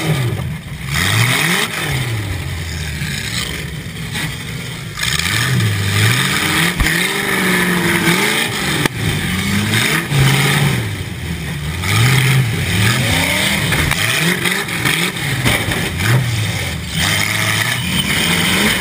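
Demolition derby car's engine, heard from inside the cabin, revving hard and easing off over and over, its pitch rising and falling every second or two, over a steady rushing hiss.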